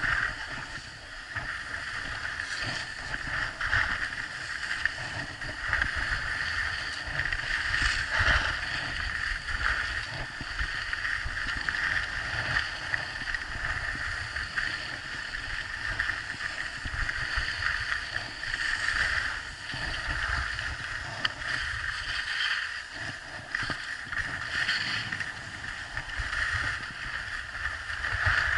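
Skiing down a groomed slope: a steady scraping hiss of edges sliding on packed snow, swelling and fading, with wind buffeting the microphone underneath.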